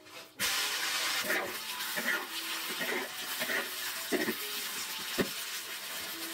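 Pork ribs hitting hot oil in a large wok and sizzling, the sizzle starting suddenly about half a second in. A spatula scrapes and turns the ribs several times as they fry.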